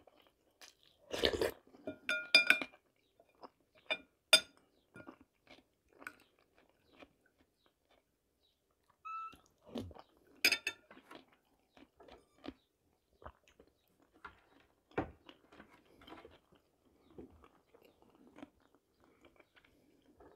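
Close-up eating sounds: quiet chewing and mouth noises from spoonfuls of okroshka, a cold soup. A metal spoon clinks against the glass bowl a few times with a short ringing, most sharply about 2, 4 and 10 seconds in.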